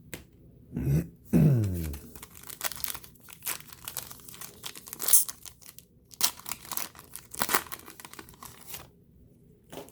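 Foil trading-card pack wrapper being torn open and crinkled, with irregular crackling and rustling. About a second in there are two short sounds that fall in pitch.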